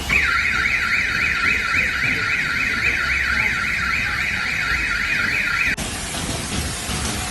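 Car alarm wailing in a rapid up-and-down warble, about five sweeps a second, over the low noise of storm wind. It cuts off after nearly six seconds, leaving a steady rush of wind and rain.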